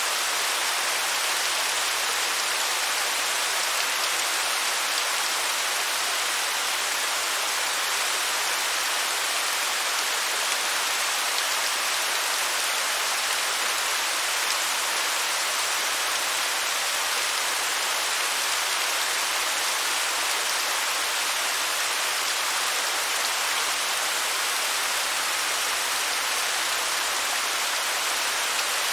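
Waterfall: a steady, even hiss of falling water with little deep rumble.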